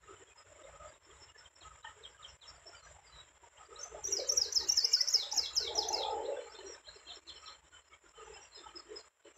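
A small songbird close by sings a rapid run of short, high, falling notes for about two seconds, starting about four seconds in, over fainter chirps from other birds. Beneath the song's second half there is a brief rustle of twigs and grass as the eagle shifts on the nest over its eggs.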